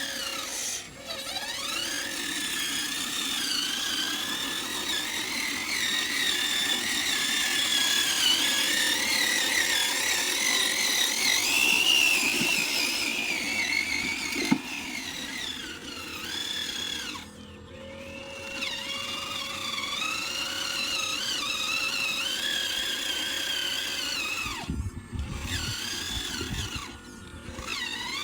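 Small electric motor of a radio-controlled model whining, its pitch wavering up and down with the throttle, cutting out briefly about two thirds of the way through and twice near the end.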